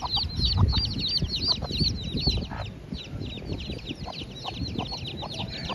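A brood of young chicks peeping rapidly and continuously, high cheeps about four a second, with a hen giving short clucks now and then.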